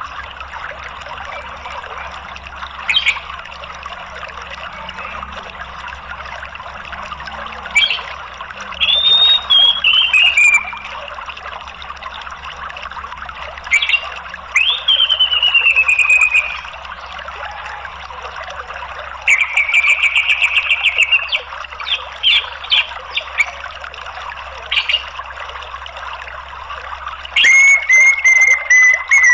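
Orange-headed thrush calling in separate phrases: whistles that slide downward, a rapid trill about two-thirds of the way through, and a few short sharp notes. Under it runs a steady rush of flowing water.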